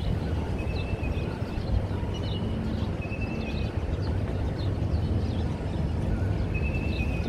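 Outdoor ambience: a steady low rumble, with small birds chirping in short high notes and brief trills scattered through it.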